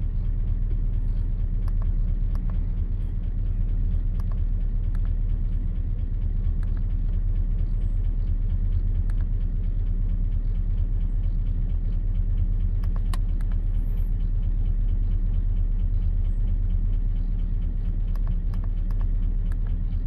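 2004 Chevrolet Silverado's 5.3 L V8 (LM7) running steadily with a rapid tapping. The engine has almost no oil on the dipstick and only about 5 psi of oil pressure, and the owner suspects it is seizing up. A few light clicks come on top.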